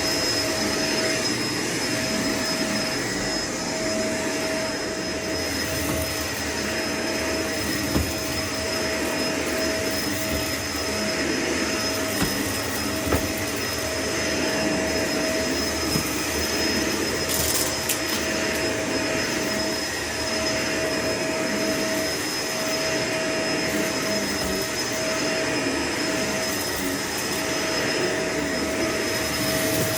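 Vacuum cleaner running steadily with a constant whine over its airflow noise, and a few sharp clicks here and there.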